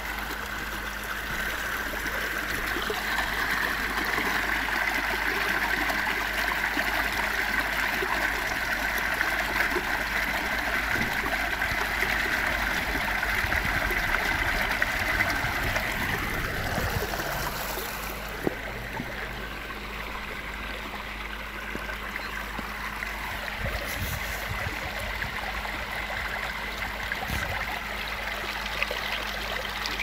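Small waterfall pouring into a stream pool: steady rushing water. A little past halfway the rush turns duller and slightly quieter.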